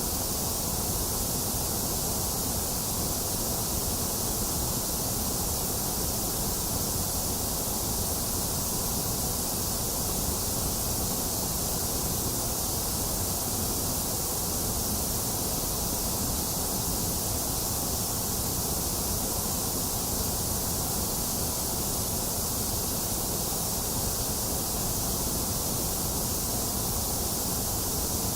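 Steady synthetic white noise: an even, unchanging hiss, brightest in the high range and thinner in the middle.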